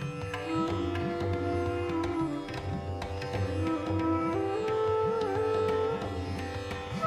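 Instrumental background music: a held melody line that slides between notes, over a repeating drum beat.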